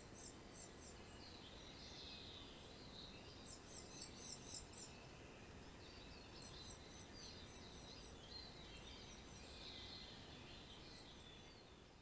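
Eurasian treecreeper calling faintly: short runs of very high, thin notes, five times, a couple of seconds apart. Softer twittering a little lower in pitch comes between the runs, over a low background hiss.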